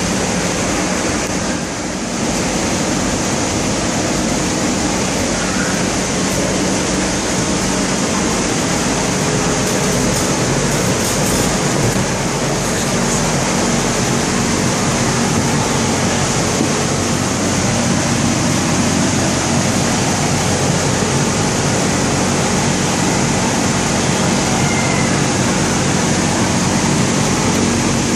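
Electric blower fan of an inflatable bouncy castle running steadily, a constant rushing air noise with a low motor hum under it.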